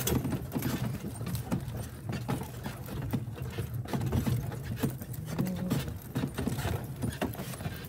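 Hooves of a pair of carriage horses clip-clopping along a heath track as they pull a horse-drawn carriage, over a steady low rumble.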